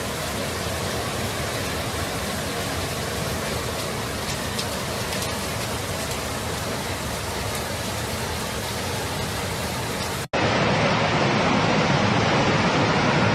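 Floodwater rushing, a steady dense roar. About ten seconds in it cuts to a louder rush of water cascading down a flight of stone steps.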